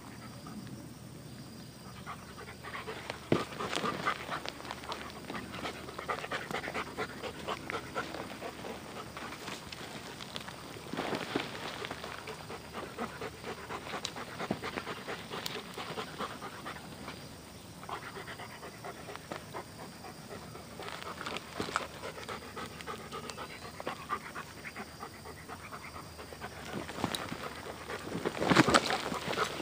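A dog panting in quick, even breaths. There is a louder scuffling burst near the end.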